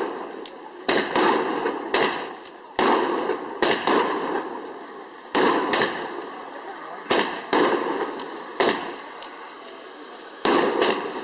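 Fireworks going off in the air: about a dozen sharp bangs at uneven gaps, some in quick pairs, each trailing off in a fading rumble.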